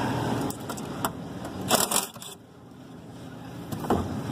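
Metal tools and sheet-metal parts being handled inside a rooftop HVAC unit: a few sharp clicks and knocks, with a short crunching scrape a little under two seconds in. A steady background noise drops away around the middle.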